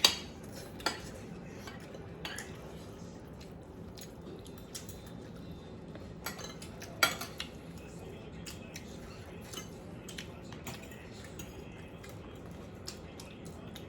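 Cutlery clinking against a plate during eating. There are sharp clinks at the start and again about seven seconds in, with a few others and many faint ticks in between.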